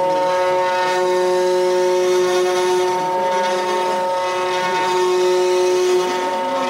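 CNC wood router running: a steady whine made of several tones, with lower tones that slide up and down in pitch throughout.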